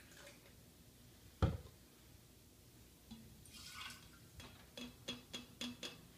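Hydrogen peroxide poured from a measuring cup into a glass carafe: faint pouring and drips, with one sharp knock about a second and a half in and a run of small ticks and drips near the end.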